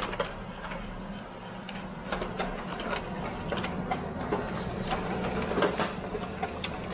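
Canon imageRUNNER 1024 copier running a copy job: a steady motor hum with many quick clicks and clacks from about two seconds in as paper feeds through and a copied sheet comes out into the output tray.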